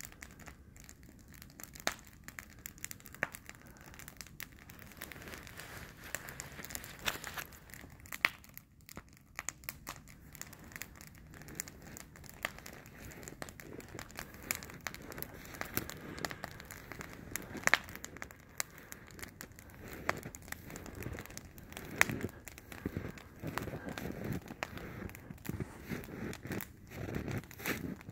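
Wood campfire crackling, with irregular sharp pops scattered throughout.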